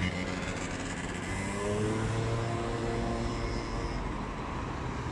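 Road traffic passing close by, with one motor vehicle's engine rising in pitch as it accelerates past, from about one and a half seconds in.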